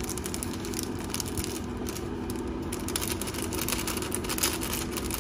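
Crackling and light ticks of a seasoning sachet being shaken, its powder sprinkled into a pot of simmering pork broth, over a steady low hum.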